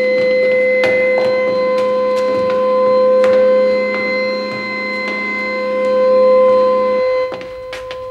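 Electronic science-fiction sound effect for a spaceship interior: a steady electronic tone with a lower buzz underneath and scattered sharp clicks. The buzz cuts off about seven seconds in and the tone carries on.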